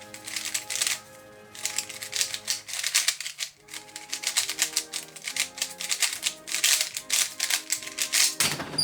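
Rapid, irregular clicking and clacking of a cheap 3x3 speed cube being turned fast during a solve, the cube freshly lubricated with a fast pure-silicone lubricant. There is a brief pause a little after three seconds in, and background music plays underneath.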